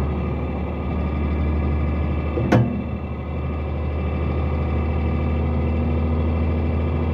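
Truck engine running steadily while driving, heard from inside the cab as a low, even drone. A single sharp knock sounds about two and a half seconds in.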